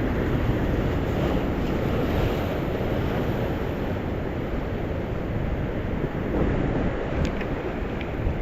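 Strong wind buffeting the microphone over the surge of rough sea surf: a steady, rough low rumble, with a few faint clicks near the end.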